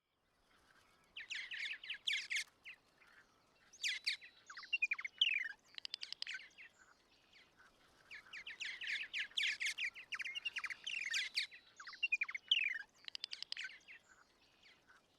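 Birds singing: phrases of rapid high chirps mixed with short falling whistled notes, broken by brief pauses.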